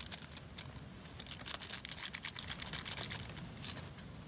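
Crinkling and crackling of a small plastic sachet being squeezed and handled, a quick irregular run of crackles that stops shortly before the end.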